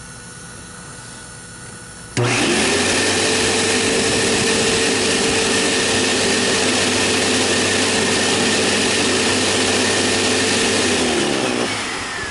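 Hoover C1660 commercial bagless upright vacuum switched on about two seconds in: the motor spins up fast and runs at a steady, loud pitch, then is switched off near the end and winds down.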